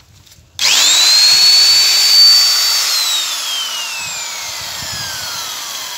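Corded 100 V, 570 W two-function (drill and hammer) electric drill switched on about half a second in, running up to speed with a steady high whine. About three seconds in the trigger is released and the motor spins down, the whine falling steadily in pitch.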